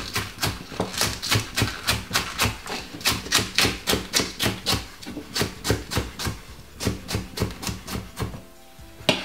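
Kitchen knife chopping spring onions on a wooden chopping board: quick, regular strokes, about three a second, stopping about eight seconds in.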